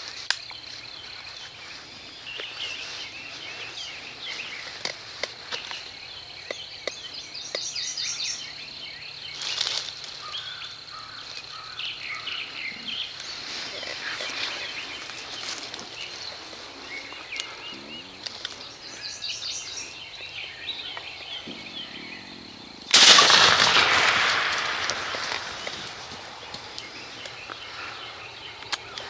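Small birds chirping and singing in the woods, then, about three-quarters of the way through, a single loud shotgun blast whose echo rolls away over a few seconds.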